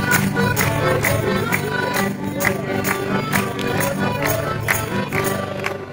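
Traditional folk dance music with a steady beat and sustained melody lines.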